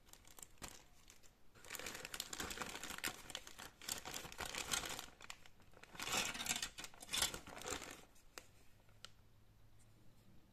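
Clear plastic kit bag crinkling and rustling as model-kit sprues are handled and pulled out of it, in two bouts: from about a second and a half in to five seconds, and again from six to eight seconds. A few light clicks follow, then it goes quiet.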